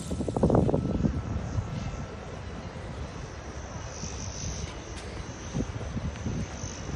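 Radio-controlled fixed-wing model airplane flying overhead, its motor and propeller a faint steady high drone over outdoor background noise. A louder rumble passes in the first second.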